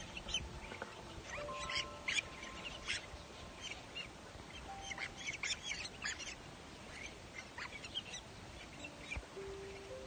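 Cormorant chicks in the nest calling: many short, squeaky cries in irregular clusters, bunched most thickly early on and again about halfway through.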